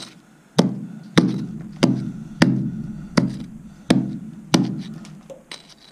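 Steel rock pick striking hard rock seven times at an even pace, about two-thirds of a second apart, each blow trailing off briefly. The pick is chipping ore out of the vein for a sample.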